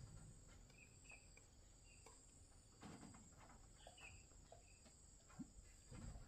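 Near silence with a faint, steady high insect trill, a few short faint chirps and a few soft knocks.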